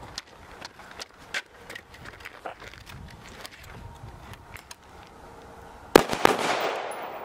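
Two quick rifle shots from an AR-style carbine about six seconds in, a fraction of a second apart, each ringing out with a long echo across the range. Before them, only faint scattered ticks and knocks.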